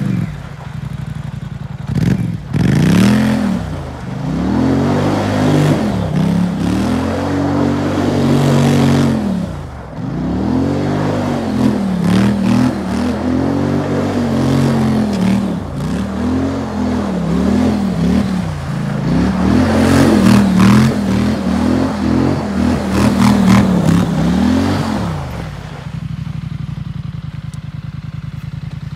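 Polaris Sportsman XP1000 ATV's twin-cylinder engine idling, then revving up and down over and over for more than twenty seconds as the quad spins donuts, with the tyres scraping and spraying loose dirt. It settles back to a steady idle near the end.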